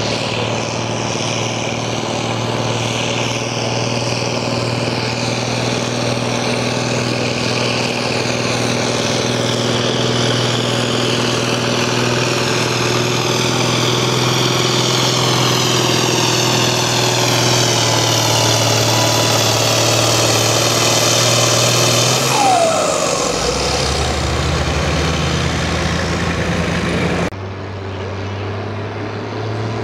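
A pulling tractor's diesel engine running hard and steady under load. About 22 seconds in, the pitch falls as the throttle comes off. A few seconds later the sound changes abruptly to a lower, steady engine running.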